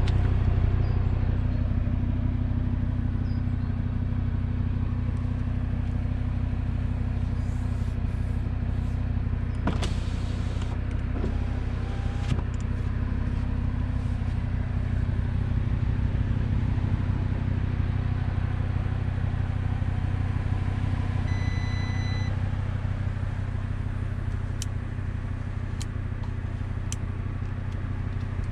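Audi RS3's turbocharged five-cylinder engine idling steadily. A few light clicks and one short beep are heard over it, the beep about three quarters of the way through.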